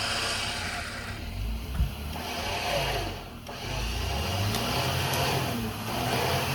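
Off-road vehicle's engine running under load while winching a fallen tree off the trail, its pitch rising and falling, with a low thump about two seconds in.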